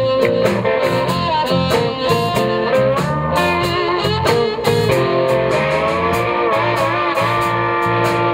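Live blues band: an amplified harmonica, cupped to a handheld microphone, holds and bends notes over electric guitar, a walking bass line and drums with steady cymbal strokes.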